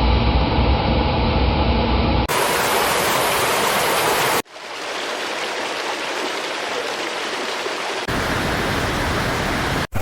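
Rushing floodwater, a steady wash of noise over several spliced clips that change abruptly about two, four and a half and eight seconds in. The first clip carries a heavy low rumble.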